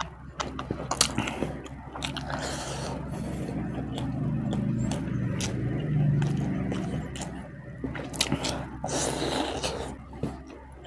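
Close-miked chewing and mouth sounds of a person eating, with many sharp wet clicks and smacks.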